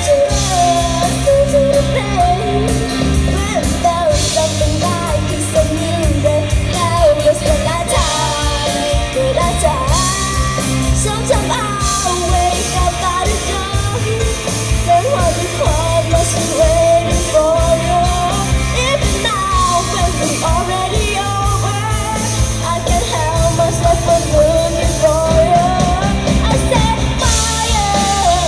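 A live rock band playing loud, a lead singer's voice carrying the melody over bass, guitar and drums.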